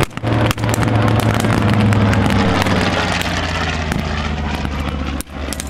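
Single-engine piston warbird flying low overhead, a loud steady propeller-engine drone whose pitch sinks slightly as it passes, dropping in level near the end.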